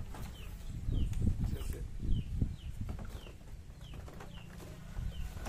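A bird chirping over and over, short falling chirps about twice a second. Under it are low bumps and rustling as a cardboard carton of bottled water is handled into a woven plastic cart box.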